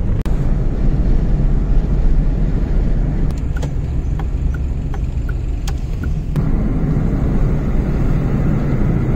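Steady low rumble of road noise and engine inside a moving Volkswagen car's cabin. A few faint, evenly spaced ticks come through for a few seconds in the middle.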